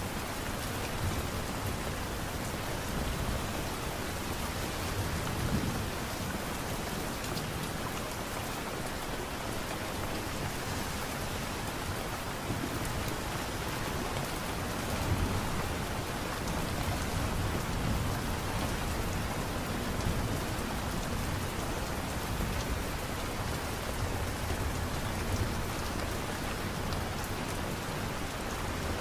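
Steady light rain, an even patter with a low rumble that swells and fades underneath.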